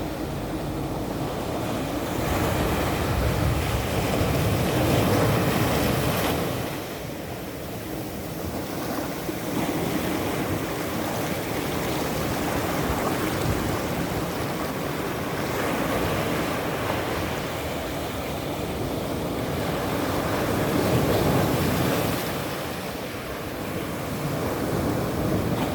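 Ocean surf: waves breaking and washing up, a continuous rushing hiss that swells and eases every few seconds.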